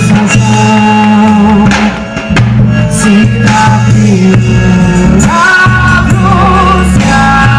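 Loud music with singing, over a steady bass line and drums.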